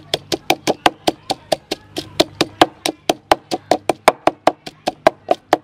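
Wooden pestle pounding fresh red chilies and garlic in a mortar, a quick even run of knocks, about five a second.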